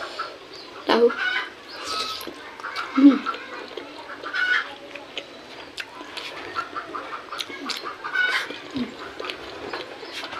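Poultry calling and clucking repeatedly in the background, with close, sharp clicks of chewing and lip smacks from someone eating.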